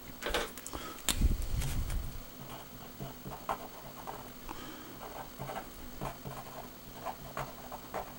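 Things handled and set down on a tabletop, with a few knocks and thuds in the first two seconds, then a pen scratching on paper in short strokes.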